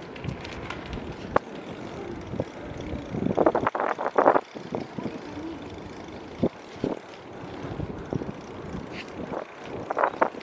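Steady wind rumble on the microphone, with scattered clicks and knocks and a louder cluster of them about three and a half to four and a half seconds in.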